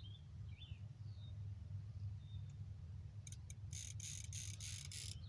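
Faint outdoor ambience: a few short bird chirps in the first second and another brief call in the middle, over a steady low rumble, with a run of short rustling or crunching noises in the last two seconds.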